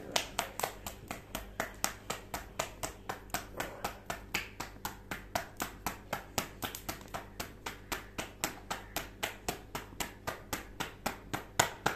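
Paratha dough being slapped back and forth between the palms to flatten it by hand: a steady run of sharp, fleshy pats, about five a second.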